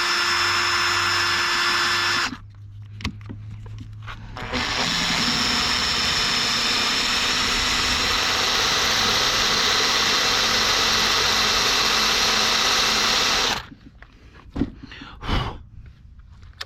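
Electric drill running with a drill bit boring into a broken bolt in an alloy cylinder head: a steady whine that stops after about two seconds, pauses briefly with a few light clicks, then runs again for about nine seconds before cutting off. The bit is a little blunt.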